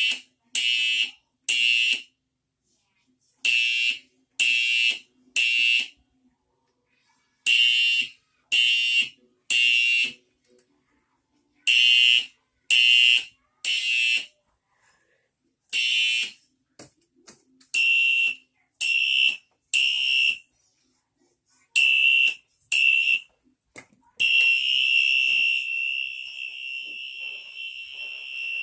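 Fire alarm sounding a temporal-3 evacuation pattern: groups of three short, shrill blasts with a pause between groups. Around 16 seconds in the rhythm breaks up, and about 24 seconds in the alarm switches to a steady continuous tone.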